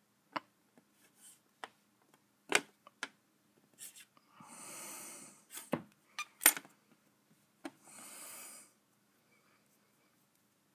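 Scattered light clicks and taps from a craft knife and a sheet of modelling material being handled on a cloth-covered table, with two soft rushing sounds of about a second each, one a little past four seconds in and one around eight seconds in.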